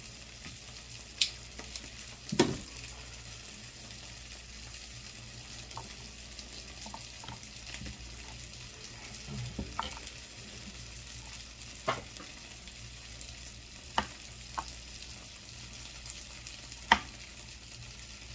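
Chicken breast sizzling as it browns in a frying pan: a steady hiss with a handful of sharp clicks now and then.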